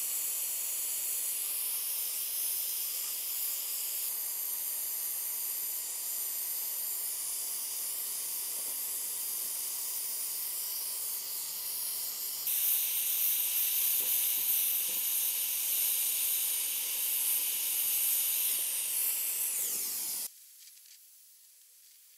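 Welding on copper tube: a steady hiss that steps louder about twelve seconds in and cuts off abruptly near the end.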